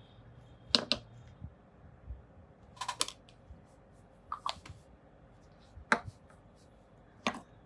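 Small plastic spoon clicking and tapping against a plastic container and bowl while scooping and tipping out powder: about five sharp clicks a second or two apart.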